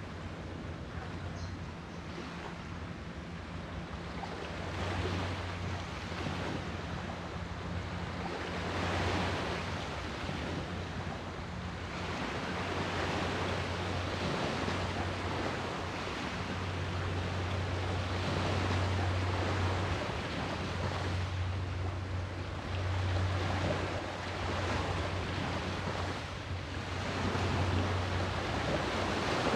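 Sea surf washing in, the rush of the waves swelling and falling away every few seconds, over a steady low hum.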